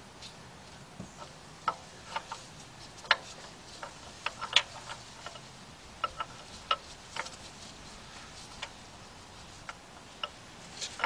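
Scattered sharp metallic clicks and clinks of hand tools being worked: a ratchet and an open-end wrench knocking together and against the crankshaft pulley bolt. They come at irregular intervals, roughly one or two a second.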